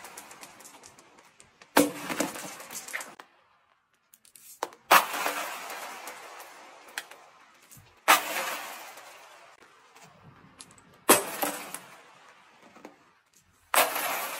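Handfuls of small beads and balls crashing onto a hard floor and scattering, five times, each a sudden clatter that dies away over a couple of seconds into a light rattle of rolling and bouncing beads.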